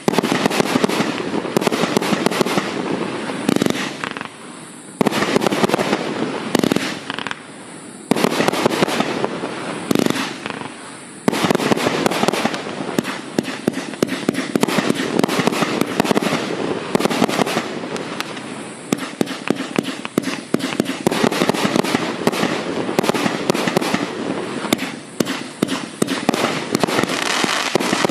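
A Furor Dark Night FC30150M fireworks cake (150 shots, 30 mm) firing a dense, rapid run of shots and bursts, with brief lulls about four, seven and ten seconds in.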